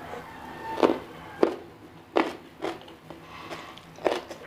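Close-up chewing of crunchy food, an open-mouthed mukbang-style chew with about five loud, sharp crunches at irregular intervals of roughly half a second to a second and a half, and softer mouth clicks between them.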